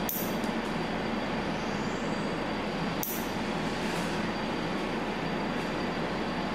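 Two sharp snips about three seconds apart as a nail clipper cuts the leads of twisted-wire vape coils to length, over a steady background hiss and hum.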